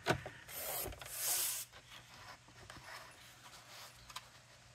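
Paper trimmer cutting card stock: a sharp click as the blade is set down, then two scraping swishes, the second and louder one about a second in, as the blade slides along the paper. Light paper rustling and taps follow.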